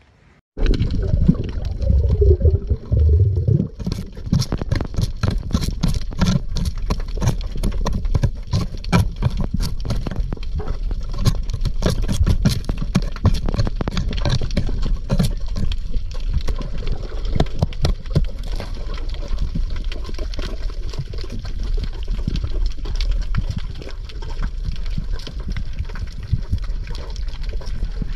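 Underwater sound, starting suddenly about half a second in: a dense crackle of many small clicks over a steady low rumble of moving water.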